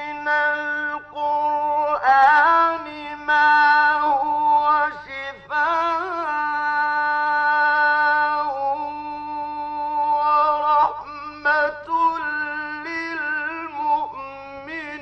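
A solo male voice chanting Quran recitation in the melodic mujawwad style: long held notes with wavering, gliding ornaments between them, over a steady low hum.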